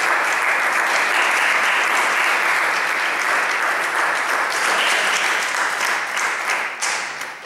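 Audience applauding after a choral performance: steady clapping that thins to a few last claps and dies away near the end.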